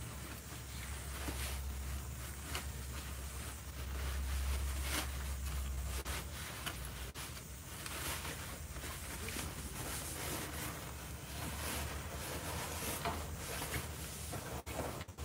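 Rustling of clothing and handling noise on the phone's microphone as the person moves about close to it, with scattered light knocks and a low rumble that swells about four seconds in.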